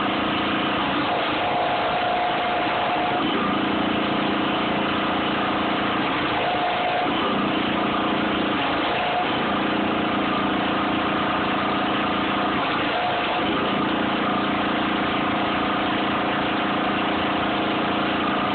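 Engine running steadily at idle, its low hum fading and returning several times.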